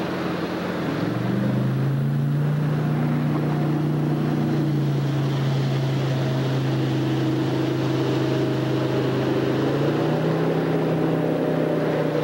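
A motorboat's engine drones steadily as the boat speeds past. The drone grows louder about a second in and holds.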